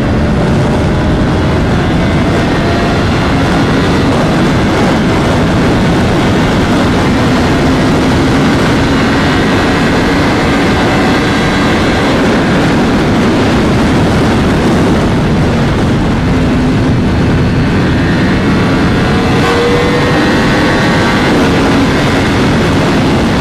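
Yamaha R1M's crossplane inline-four running through a custom aftermarket exhaust while riding, its pitch drifting gently up and down under a steady rush of wind.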